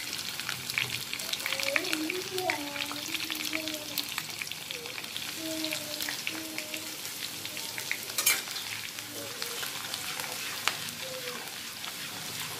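Dried red chillies frying in hot oil in a kadai: a steady crackling sizzle full of small pops, with one sharp, louder pop about eight seconds in. A metal spatula stirs them near the end.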